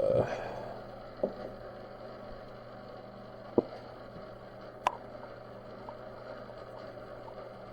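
Low steady electrical hum with four sharp, separate clicks and taps of small containers being handled while Cerakote paint is mixed.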